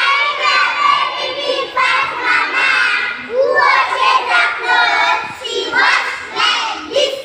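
A group of young children singing and shouting together in loud chorus.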